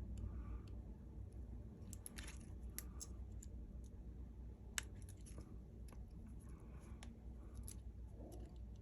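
Faint scattered clicks and taps of small tools and parts being handled during phone reassembly, the sharpest click about five seconds in, over a low steady hum.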